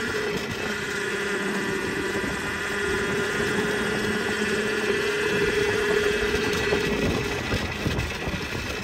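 Electric motor of a Volcon Grunt off-road motorcycle giving a steady whine under load on a steep gravel climb, over tyre and drive-chain noise, with chain slap that can get pretty loud. The whine dies away about seven and a half seconds in as the bike eases off.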